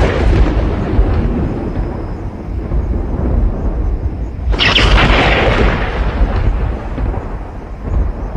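Thunder: a continuous low rumble, with a loud crack of thunder about halfway through that fades away over a couple of seconds.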